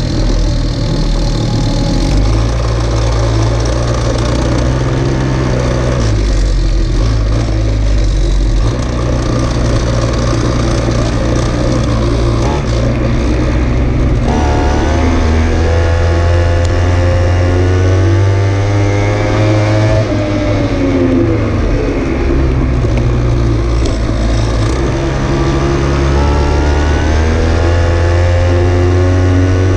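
A small vehicle engine running under way. Its pitch holds steady, then climbs about halfway through and drops back, and climbs again near the end as it is revved.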